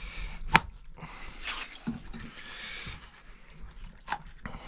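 Water dripping and splashing at a hole in the ice as a burbot is brought up on the line, with two sharp knocks, one about half a second in and one near the end.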